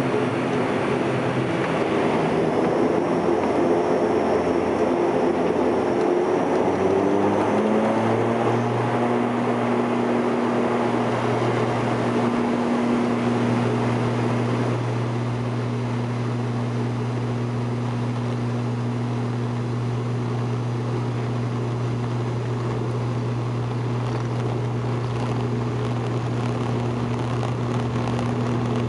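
ATR72-500's Pratt & Whitney PW127 turboprop engines and propellers droning, heard from inside the cabin. The propeller tone rises in pitch about seven to nine seconds in, then holds steady.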